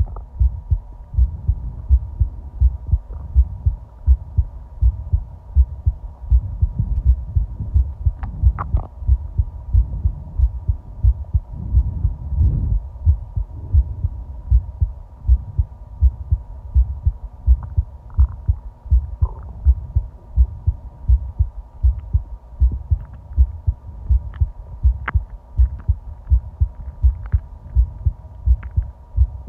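A person's heartbeat: a steady, even rhythm of low thuds, over a faint steady hum.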